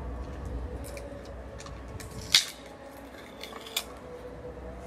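Small metallic clicks and rattles of a wall-mounted key lockbox and its keys being handled, with one sharp click about two and a half seconds in and a smaller one about a second later.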